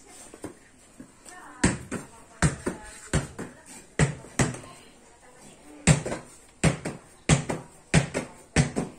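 A netball is thrown against a wall and caught over and over: sharp smacks, often in quick pairs, from about a second and a half in.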